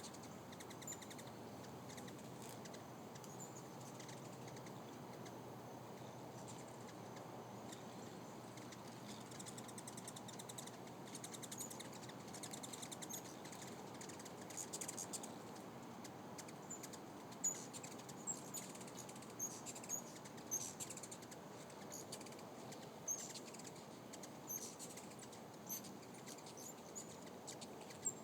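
Hummingbirds at feeders chirping: many short, high chirps scattered throughout, coming thicker and louder in the second half, over a steady low background rush.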